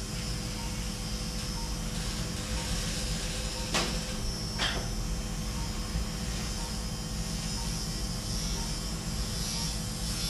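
Steady hiss and low hum of operating-room equipment running during arthroscopic shoulder surgery, with two sharp clicks about four seconds in.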